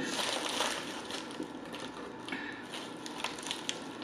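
Aluminium foil sandwich wrapper crinkling as it is folded back by hand, densest in the first second, then scattered small crackles.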